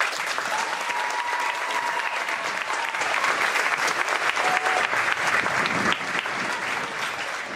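Audience applauding, starting suddenly and easing off slightly near the end.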